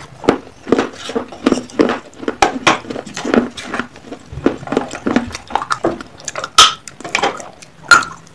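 Terracotta clay pot pieces being bitten and chewed close to the microphone: a dense run of sharp crunches and cracks, several a second, with louder cracks about six and a half and eight seconds in.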